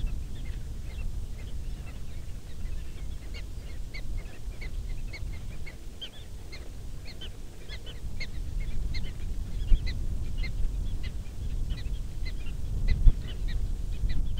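Prairie dog alarm barks: short high chirps repeated several times a second without a break, over the low rumble of wind on the microphone. Two brief low thumps stand out, about ten and thirteen seconds in.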